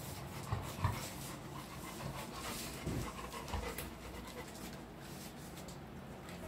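Golden retriever panting quietly.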